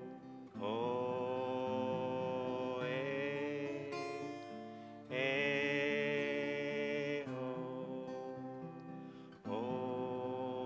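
A voice sings a melody on the bare vowels "oh" and "ah" in place of words, each held about two seconds, in the order oh, ah, ah, oh, oh, over guitar accompaniment.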